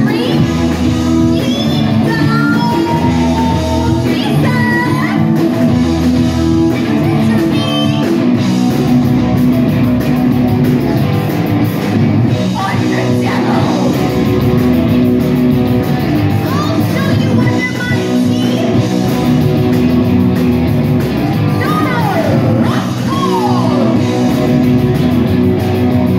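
Rock band playing live and loud: electric guitar, drums and a singer's voice through the PA.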